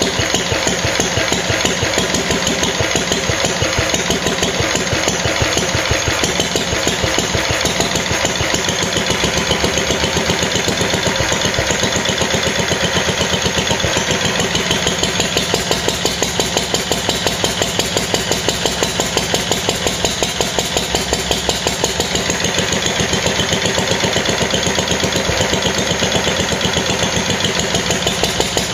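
1945 Lister D reverse-rotation single-cylinder four-stroke petrol stationary engine running steadily, firing in an even, rapid beat.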